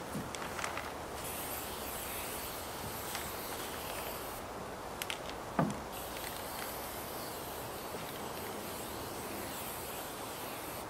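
Steady outdoor background noise with a few light knocks: a small cluster near the start and two more about five seconds in, the second the loudest.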